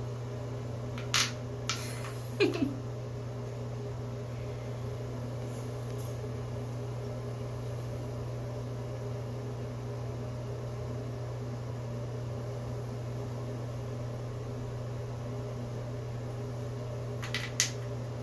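Steady low hum of a running appliance or fan, with a few sharp clacks of wooden puzzle letters against the board and tile floor about a second or two in and again near the end.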